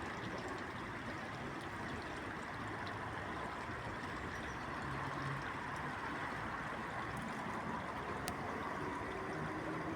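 Steady rush of flowing water with a faint low hum of city traffic under it.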